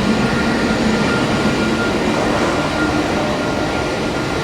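Steady airport ramp noise: a continuous machinery rumble and hiss with a thin, steady high whine running through it.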